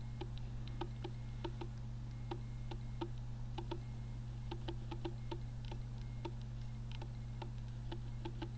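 A steady low hum with faint, irregular ticking clicks, about two or three a second.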